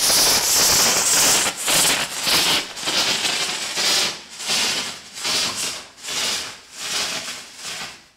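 Hydrogen peroxide steam rocket engine with a plaster-lined catalyst chamber venting steam. It starts as a loud steady hiss, then after about a second and a half breaks into a series of uneven spurts that weaken and come further apart until they die out near the end. It is a weak, sputtering run that the builder calls underwhelming: the plaster catalyst is not decomposing the peroxide well.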